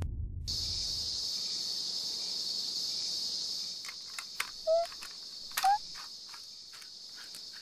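Steady high-pitched insect chirring of a summer outdoor ambience, after a music tail fades out in the first second. From about four seconds in come scattered light clicks and two short rising chirps, which are the loudest sounds.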